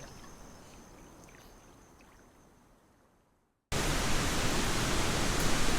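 Faint outdoor background fading away to silence, then about two thirds of the way in a loud, steady rushing noise cuts in abruptly and carries on.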